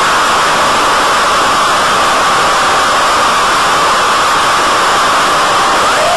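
Steady hiss from the model wing's onboard audio in flight: wind rush and the electric motor and propeller run together as one even noise with a steady whine in it.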